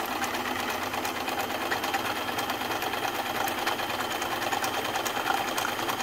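Freshly serviced Kenmore 158-series Ultra-Stitch 12 sewing machine running steadily at sewing speed, stitching a decorative pattern stitch, with a fast, even ticking from the needle and feed.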